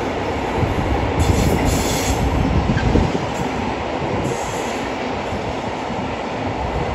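Container wagons of a long freight train rolling over a railway bridge: a steady rumble of wheels on rail, a little louder between about one and three seconds in.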